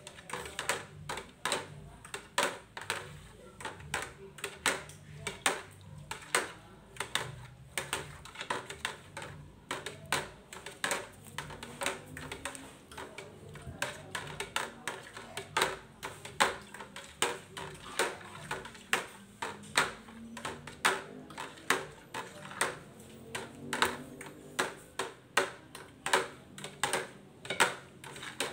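A plastic stirring stick clacking against the sides and bottom of a plastic bucket as foamy liquid is stirred, about two sharp clicks a second.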